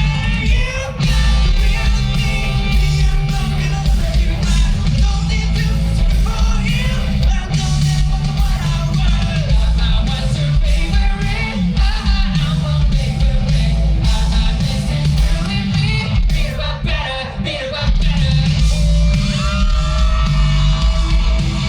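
Live rock band playing loudly: distorted electric guitars, bass and drums under a singing, at times shouted, lead vocal, with a short drop in loudness about seventeen seconds in.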